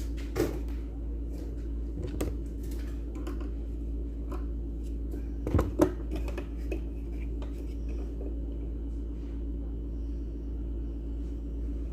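Scattered small clicks and knocks of mixer grinder parts being handled during disassembly, the loudest pair about six seconds in, over a steady low hum.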